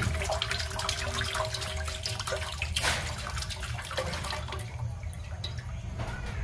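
Coconut water poured from a split green coconut into a steel wok of liquid, splashing steadily, over a steady low hum. The pour stops about four and a half seconds in, leaving only faint dripping.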